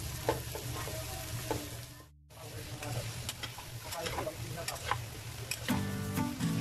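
Food sizzling as it fries in a pan, stirred with a cooking utensil that knocks and scrapes against it. The sound breaks off briefly about two seconds in, and music comes in near the end.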